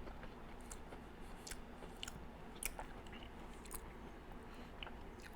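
Faint chewing of a mouthful of chocolate cake, with a few small, irregular wet mouth clicks.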